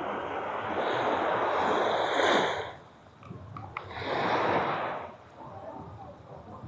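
Small waves washing up on a sandy beach: one long surge that builds and breaks off sharply a little under three seconds in, then a second shorter wash about four seconds in.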